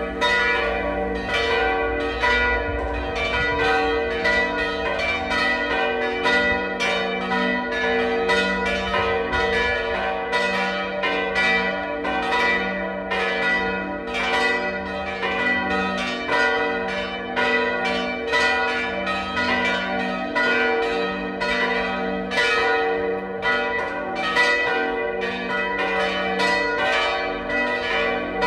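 Full peal of four post-war Oberascher church bells tuned g', b', d'', e'', ringing together in a steady, continuous stream of overlapping strikes. The bells are out of tune with one another.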